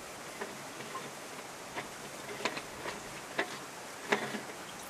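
About half a dozen light, irregular clicks and taps of plastic as the depressurised white plastic pressure vessel is twisted loose on its threads on top of a ram pump, over a steady low hiss.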